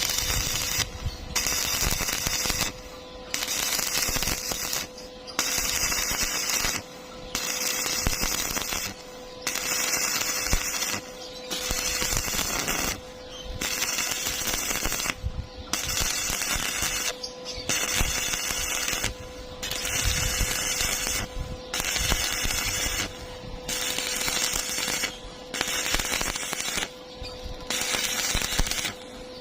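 Welding arc crackling in repeated short runs of about one and a half to two seconds, each broken off by a brief pause, as in stitch welding, with a faint steady hum underneath.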